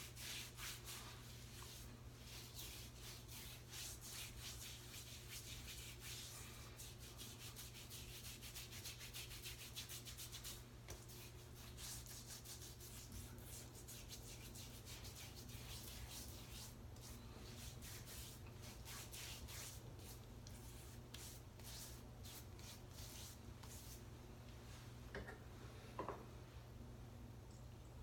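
Faint, scratchy rubbing of hands working bloomed shaving-soap water over wet skin on the face, over a steady low hum.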